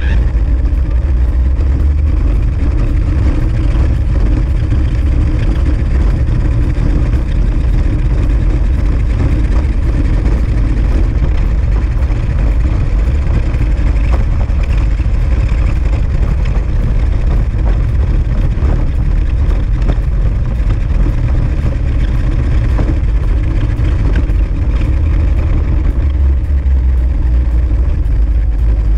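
Radio-controlled car driving fast over asphalt, heard through the camera mounted on it: a steady low rumble of running gear and road vibration.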